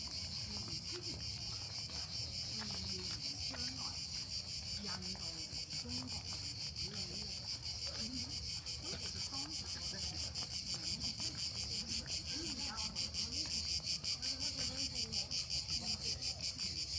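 Cicadas in a continuous high-pitched chorus with a fast, even pulsing, which becomes stronger in the second half.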